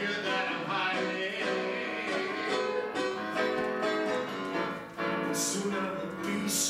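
A man singing a musical-theatre number accompanied by piano played on an electric keyboard.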